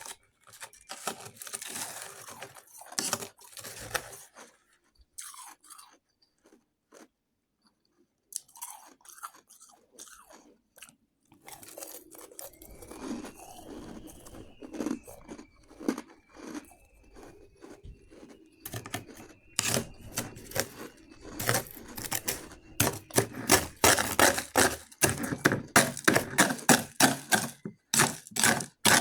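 Shaved ice being bitten and chewed close to the microphone: crisp, crackling crunches. There is a pause of a few seconds early on, and the crunching turns fast and louder in the last third.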